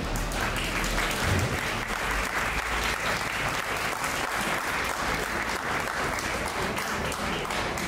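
Audience applauding: a dense, steady mass of handclaps.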